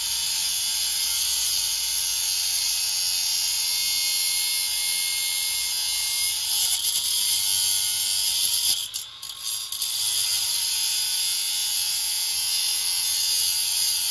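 Cordless cut-off tool with a small abrasive wheel grinding through a steel coil spring: a steady, high-pitched grinding that lets up briefly about nine seconds in. The coil spring is being cut shorter to lower the truck.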